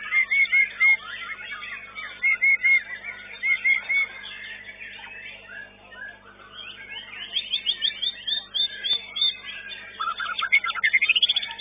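White-rumped shama (murai batu) in full contest song: short whistled phrases repeated several times over, then rapid runs of notes and a fast rising trill near the end, the loudest part.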